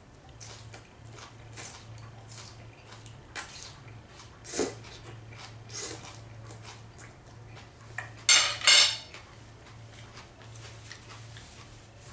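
Knife and fork clinking and scraping on a plate as a steak is cut and eaten, in scattered light clicks. About eight seconds in, two loud, short rustling bursts stand out above the cutlery.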